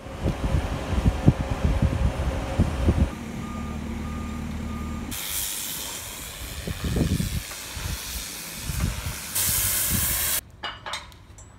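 Boatyard travel hoist's engine running, with three short warning beeps after about three seconds. From about five seconds in, a pressure washer hisses steadily as it blasts a yacht's hull, then cuts off suddenly near the end.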